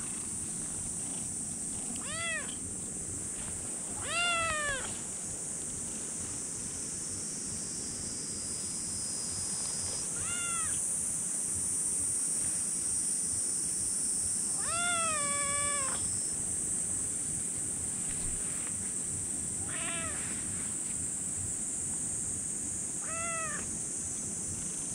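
Young kitten meowing six times in short, high, arching calls; the loudest comes about four seconds in and a longer, drawn-out one near the middle. A steady high hiss runs underneath.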